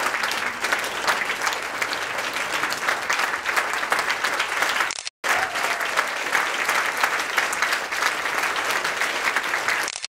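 Audience applauding steadily, a dense patter of many hands clapping, which breaks off for a split second about halfway through.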